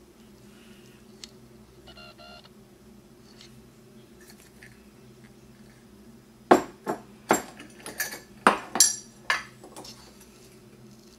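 Metal teaspoon clinking and scraping against a glass jar while scooping out Himalayan salt: about eight sharp clinks over some three seconds past the middle, the first the loudest. A single short ringing ping comes about two seconds in, over a low steady hum.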